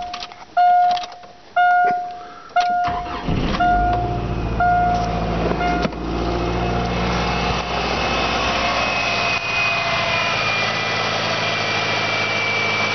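A 1994 Subaru EJ22 2.2-litre flat-four in a 2002 Legacy cranks about three seconds in and catches at once, then settles to a smooth, steady idle that runs a little high in the cold. The car's warning chime dings about once a second over the start and stops about six seconds in.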